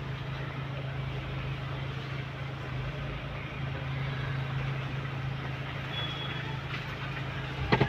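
Mahindra Thar's engine running steadily, heard from inside the cabin as an even low hum.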